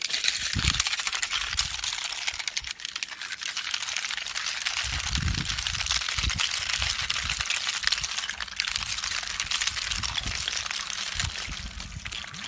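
Rods of ice that froze inside a garden hose being pushed out by the water, clinking and crackling against each other as they spill and pile up on dry grass.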